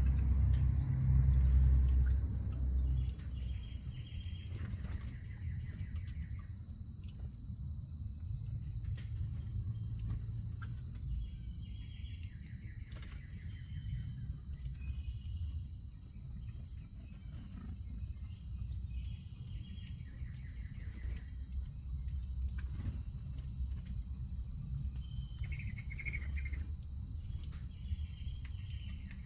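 Wild songbirds at a backyard feeder giving many short, high chirps throughout, over a steady high-pitched hum and a low rumble that is loudest in the first three seconds.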